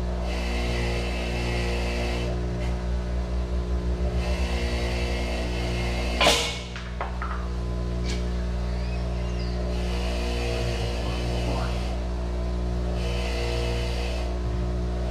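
Parts-washer pump running with a steady electric hum, while solvent streams from the nozzle in hissing spurts of a second or two, several times over. A single clunk of a part or the lid comes about six seconds in.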